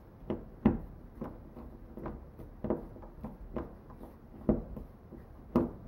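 Hand screwdriver driving a wood screw into a small wooden block: a series of short clicks and creaks, roughly one every half second, as the screw is turned.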